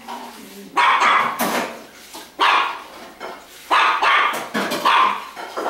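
A dog barking repeatedly, about half a dozen sharp barks at uneven gaps of half a second to a second.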